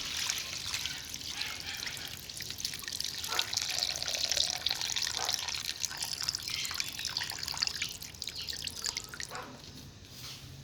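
Water splashing and trickling, with many small drips and clicks; it eases off about nine and a half seconds in.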